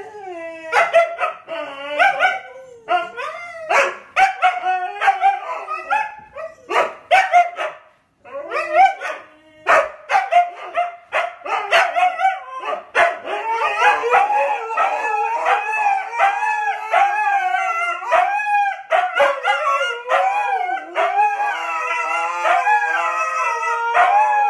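Two Siberian huskies howling and calling back and forth at each other, long wavering howls broken by short sharp calls. The sound stops briefly about eight seconds in; from about thirteen seconds the two voices overlap without a break.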